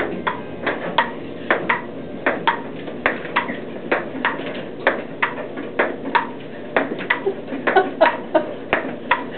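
Ping-pong ball clicking as it bounces on the table and is hit back and forth in a rally, about three sharp clicks a second.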